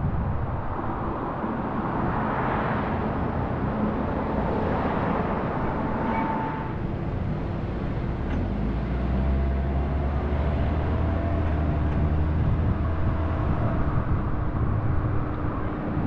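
A car driving along a road: steady tyre and road noise with the engine running underneath. About halfway through, a low steady engine drone comes up.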